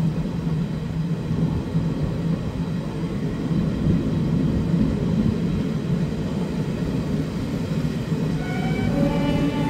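Passenger train running at speed, heard from an open coach door: a steady rumble of wheels on rails with a low hum. Near the end a train horn sounds in a few short notes.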